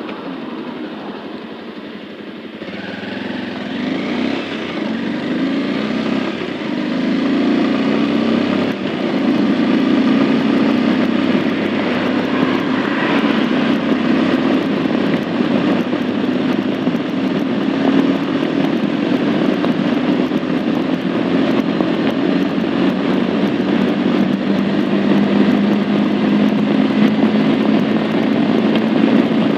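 Bajaj Avenger 160 Street's single-cylinder engine pulling away from a standstill about three seconds in under full throttle. It gets louder in steps through the gears, then holds a high, slowly rising drone as it runs on toward 100 km/h.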